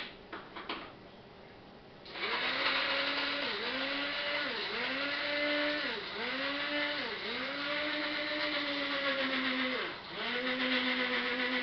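Small electric grinder grinding dried cannabis, its motor run in about seven short bursts from about two seconds in, each spinning up and winding down, one held for about three seconds. A few light clicks come before the first burst.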